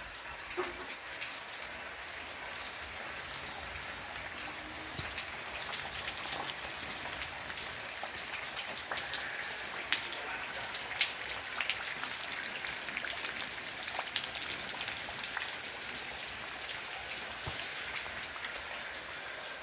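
Steady rain falling, an even hiss with many scattered drops ticking sharply on hard surfaces.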